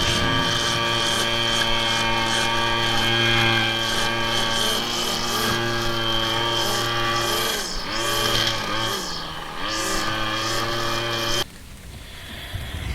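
Small petrol engine of yard equipment running steadily, dipping briefly in pitch a few times, then cutting off abruptly near the end.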